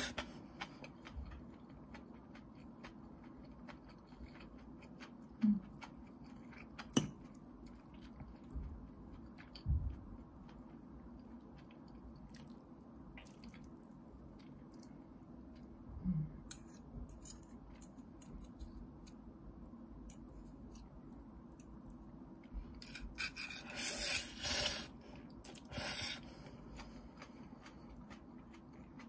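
Metal fork and spoon twirling spaghetti on a ceramic plate: sparse light clinks and scrapes with quiet chewing over a low steady hum, and a louder stretch of scraping a few seconds before the end.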